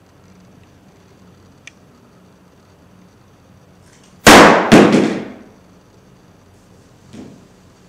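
A steel ball dropped down a clear tube hits the screen of a phone fitted with a screen-protector film: a sharp clang about four seconds in, then a second clang half a second later as it bounces, with a short ringing tail.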